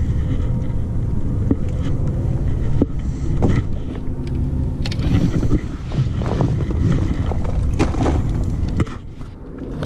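Wind rumbling steadily on the microphone, with scattered sharp clacks and knocks of fishing rods and footsteps on loose rocks. The rumble eases for a moment near the end.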